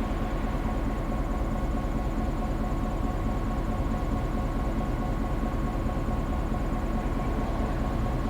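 EMD GP9 diesel locomotive's 16-cylinder 567 two-stroke engine running at a steady, unchanging pitch, with a thin steady whine above the engine rumble.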